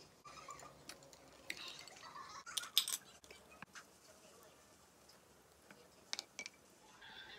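Scattered light clinks and knocks of tableware: a glass with ice set back on the table, then a wooden spoon and chopsticks tapping a ceramic bowl as a cold acorn-jelly soup is stirred. The loudest clatter comes just under three seconds in.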